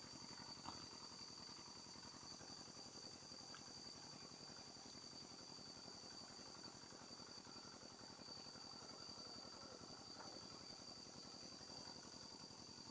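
Faint, steady high-pitched chorus of insects, a continuous shrill drone, with one small click about a second in.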